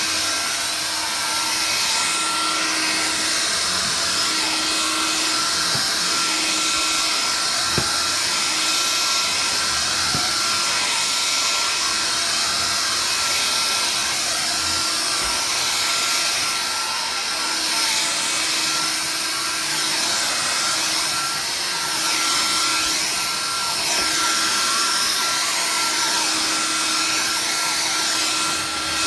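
Vax Air Cordless Lift cordless vacuum cleaner running steadily while vacuuming, a continuous rushing noise with a steady high whine. A couple of small clicks come about eight and ten seconds in.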